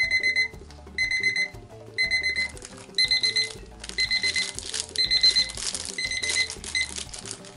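Digital kitchen timer's alarm going off, signalling that the set time is up: a high-pitched electronic beep-beep-beep in short groups about once a second, eight times, the last group cut short as it is stopped. Plastic rustling from about three seconds in as the timer is picked up.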